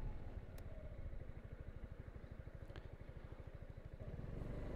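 Piaggio MP3 400 HPE scooter's single-cylinder engine idling with an even, rapid pulsing beat, picking up revs near the end.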